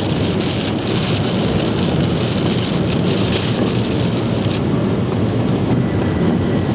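Heavy rain drumming steadily on a moving truck's roof and windshield, heard from inside the cab, with road noise beneath.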